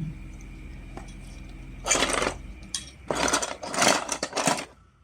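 Plastic magnetic tiles clattering against each other as they are rummaged through and picked from a pile, in several quick bursts over the second half.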